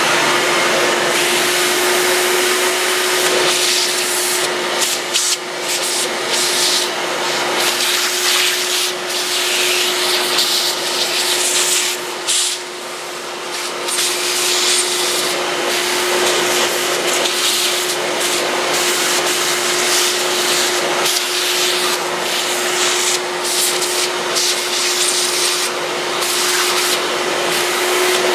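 A vacuum cleaner running steadily, its nozzle worked over a laptop's open keyboard bay to suck out dust and gunk. A steady motor hum sits under a loud airflow hiss that keeps changing as the nozzle moves, dipping somewhat quieter for a moment about halfway through.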